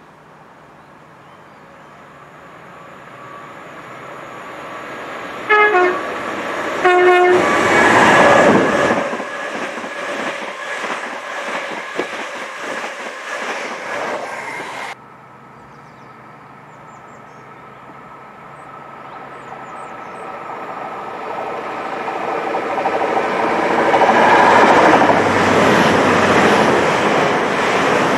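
GWR Intercity Express Train sounding two short horn notes, the second a little lower, then running past with loud wheel and rail noise. After a sudden cut, the train's noise builds steadily as it approaches and goes by at speed near the end.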